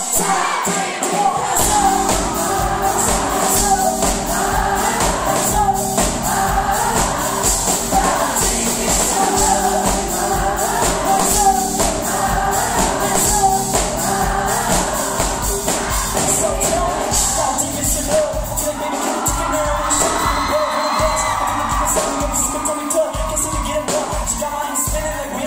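Live pop music: singing over drums and other percussion, loud and steady, as heard from the audience at a concert.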